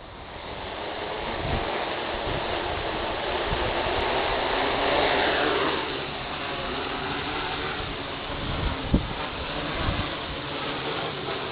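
DJI F450 quadcopter's four 1100 kV brushless motors and 10-inch propellers spinning up and lifting off, then buzzing in a hover, the pitch dropping about five seconds in as the throttle eases. Gusts of wind thump on the microphone.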